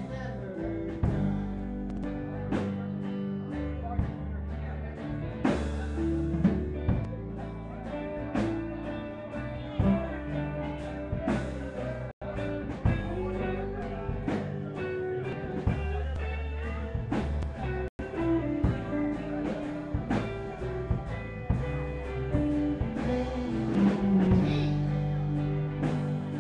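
A live band playing a rock number on acoustic and electric guitars with a drum kit, the sound cutting out for an instant twice.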